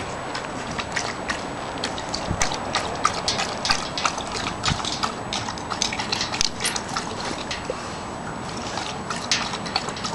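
German Shorthaired Pointer lapping water from a metal bucket: a quick, irregular run of small splashes and slurps.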